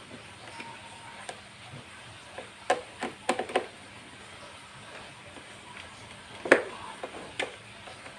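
Scattered light clicks and knocks from a screwdriver and hands working on the plastic casing of an all-in-one PC, a quick cluster a few seconds in and one louder knock near the end.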